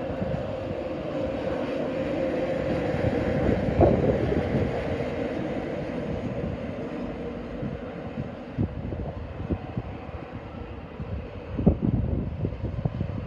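Intercity passenger train running along the far track and moving away: a steady rumble of wheels on rail with a held tone near the start. There are sharp knocks about four seconds in and again near the end, and the rumble fades as the train recedes.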